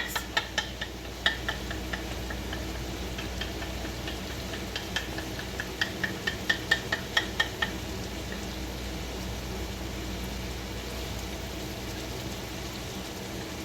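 Raw eggs being beaten in a bowl, a run of quick clicks of the utensil against the bowl in the first half, then stopping. Under it runs the steady noise of a room air conditioner.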